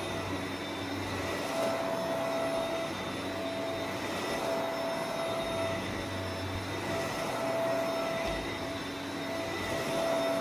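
Upright vacuum cleaner running on carpet as it is pushed back and forth: a steady motor drone with a whine that breaks off and comes back every second or two.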